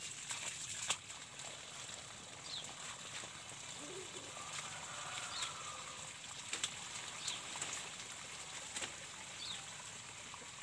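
Water running steadily out of an open garden hose onto leaf litter at the base of a coffee plant, a soft hiss and trickle. Short high falling chirps sound a few times, a few seconds apart.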